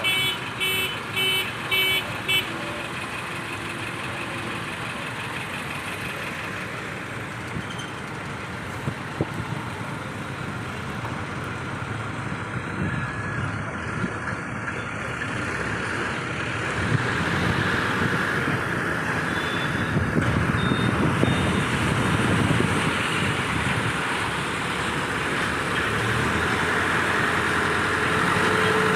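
Heavy crane engine running steadily, getting louder about seventeen seconds in as it works harder. A warning beeper sounds about twice a second for the first couple of seconds, then stops.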